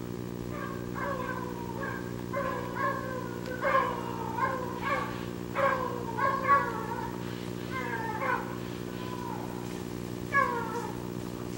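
A pack of hare hounds giving tongue on the hare's scent: a string of short, falling cries, one or two a second, with a lull of about two seconds before one more cry near the end. A steady low hum runs underneath.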